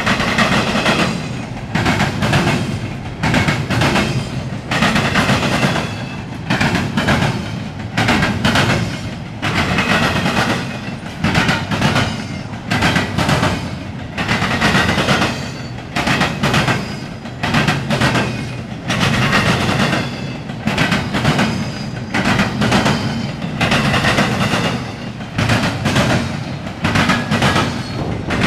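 Norfolk Southern double-stack intermodal freight train passing close by, its steel wheels clacking in a steady repeating rhythm, a burst of clatter every second or two as car after car rolls past.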